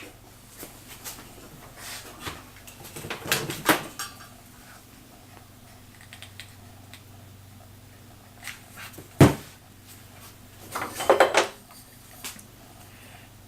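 Scattered knocks and clatter of wood pieces being handled on a workbench, with one sharp knock about nine seconds in.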